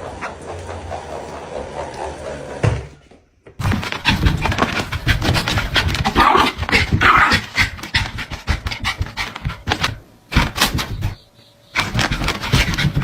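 A dog panting, in short stretches broken by sudden cuts.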